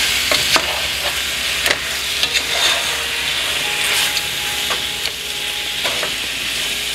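Chicken pieces and spice masala sizzling in hot oil in a pot while a wooden spatula stirs them, with scattered short scrapes and knocks of the spatula against the pot. The masala is being fried into the chicken.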